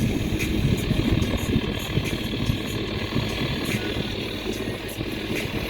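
Sailboat's auxiliary engine running steadily under way, with a louder low rumble in the first couple of seconds.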